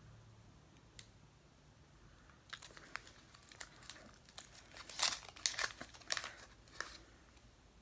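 Crinkling of a twist-wrapped chocolate candy's wrapper as it is unwrapped by hand: a run of crackles starting about two and a half seconds in, loudest around five to six seconds.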